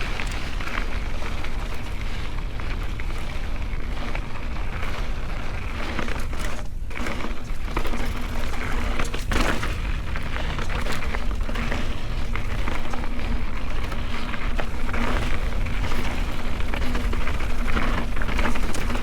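Mountain bike rolling fast down a dirt trail: knobby tyres crunching over dirt and rocks, with a rumble and a steady run of small clicks and knocks from the bike rattling over the rough ground.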